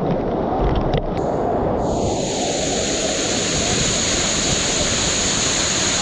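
Waterfall water rushing and splashing: a low rumble for about two seconds, then a bright, even hiss.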